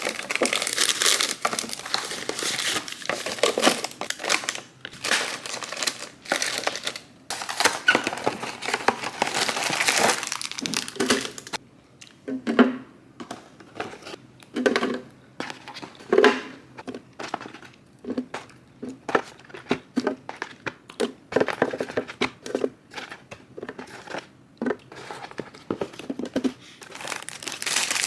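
Crinkling and rustling of packaging being handled, with irregular short knocks from about halfway through.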